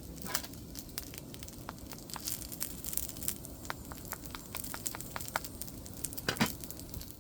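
A wood fire crackling, with irregular sharp snaps and a louder crunch near the end.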